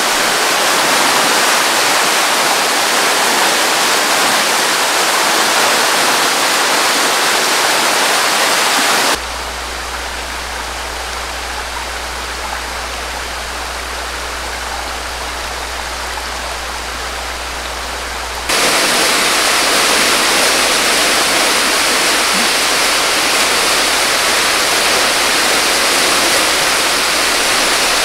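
Muddy floodwater rushing and churning in a swollen creek: a loud, steady rush of water. About nine seconds in it cuts to a quieter stretch of moving water with a steady low hum underneath, and the loud rush returns about halfway through.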